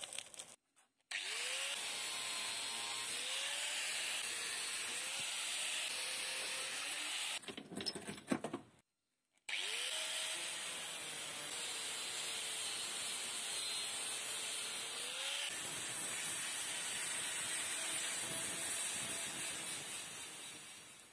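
Angle grinder grinding the rusty iron of an old nail puller held in a vise, its motor pitch sagging and recovering as the disc bites. It runs in two long passes, split by a few knocks of handling about a third of the way in.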